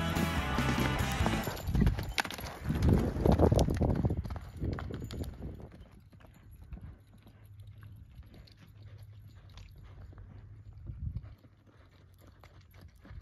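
Hoofbeats of an Arabian horse loping on a dirt arena. They are loud while the horse passes close in the first few seconds, then fainter as it moves away around the arena.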